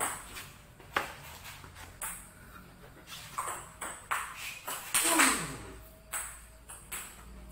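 Table tennis rally: the celluloid-type ball clicking off rubber-faced bats and bouncing on the table, about one sharp click every half second to a second. About five seconds in, the loudest moment, a quick cluster of hits comes with a short sound that falls in pitch.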